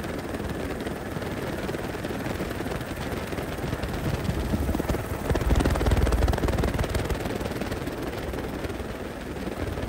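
Helicopter rotor and engine noise heard from on board: a steady, dense low rumble that swells louder in the middle and then settles back.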